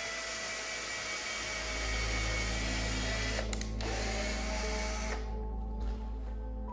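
Small electric drill running with a steady whine; it cuts out briefly about three and a half seconds in, spins back up with a rising whine, and stops about five seconds in.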